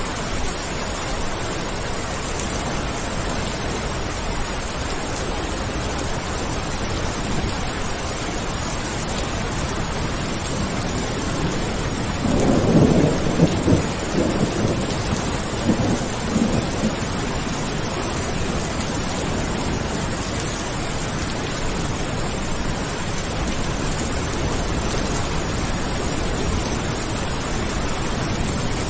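Steady rain, with a rumble of thunder about twelve seconds in that swells several times over some five seconds before fading back into the rain.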